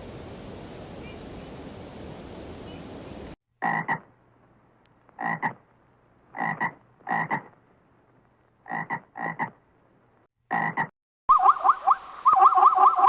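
Steady hiss of background noise, then after a cut seven short, separate animal calls spaced roughly a second apart. Near the end a different animal call takes over: a rapid warbling run of quick rising notes.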